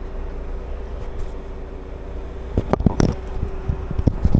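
Timber truck's diesel engine idling with its crane hydraulic pump engaged, a steady low hum with a faint even drone over it. Several knocks and rubs from the phone being handled against clothing, about two and a half seconds in and again near the end.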